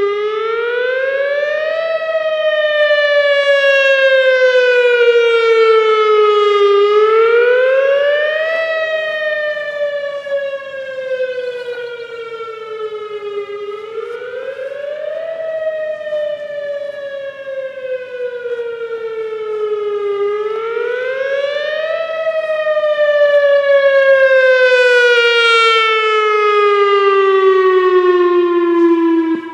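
Whelen WPS-2000R electronic outdoor warning siren sounding a rise-and-fall tone: a quick rise in pitch, then a slower fall, repeating about every six and a half seconds. Its loudness swells, fades and swells again as the rotating speaker head turns, and the last fall sinks lower before the sound stops.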